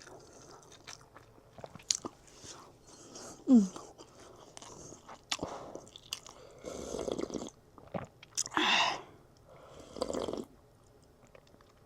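Close-miked mouth sounds of a person eating: chewing and crunching of food with wet clicks, in short bursts, and a brief falling tone about three and a half seconds in.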